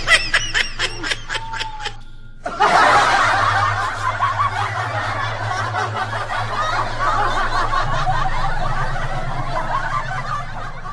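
Laughter: a quick run of rhythmic laughing pulses, then from about two and a half seconds in, a dense chorus of many people laughing at once that carries on to the end.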